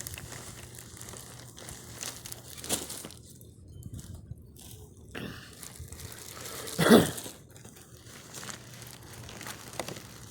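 Plastic garbage bag crinkling and rustling as it is handled, with scattered crackles, and one loud, short sound about seven seconds in.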